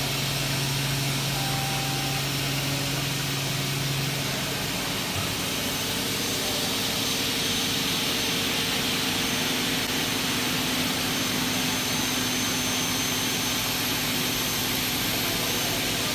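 Double-head aluminium cutting saw running, a steady mechanical whir with a hiss. A low hum drops out about four seconds in.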